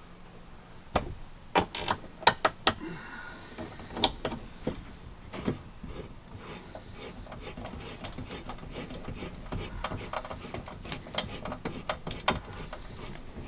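Hand screwdriver driving screws into a metal L track on a van ceiling: a few sharp clicks and knocks in the first several seconds, then a long run of light, rapid clicking.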